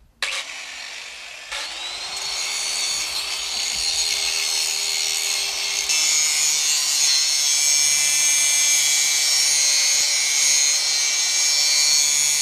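Electric angle grinder with a diamond disc switched on, its motor whine rising as it spins up, then cutting into a metal bolt from about six seconds in, louder and harsher while it throws sparks.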